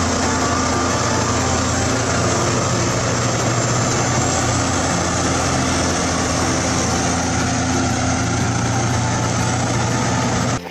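Bulldozer's diesel engine running steadily at a constant, loud level.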